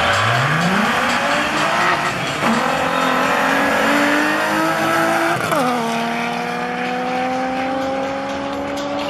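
Two Volkswagen Golf Mk2s launching off a drag-strip start line and accelerating hard. Engine pitch climbs quickly from the launch, then steps down at gear changes about two and a half and five and a half seconds in, climbing again after each shift.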